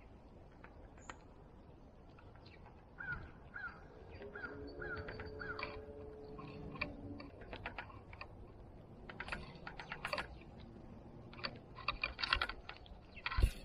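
Birds calling at a backyard feeder: a run of five short falling notes, then a held call. It is followed by many scattered sharp clicks and taps.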